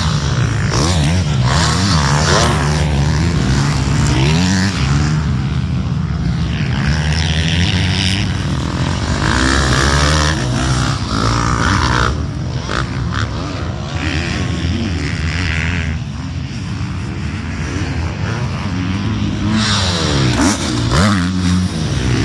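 Dirt bike engines on a motocross track, revving up and dropping back over and over as the bikes ride and jump, the pitch rising and falling with each throttle change.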